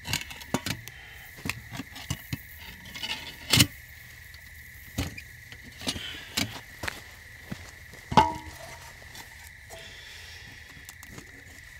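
Metal clinks and knocks of camp cookware, a pot and pan being lifted off a fire and set down, with a sharp clank about three and a half seconds in and a ringing clank about eight seconds in. A steady high insect trill sounds underneath.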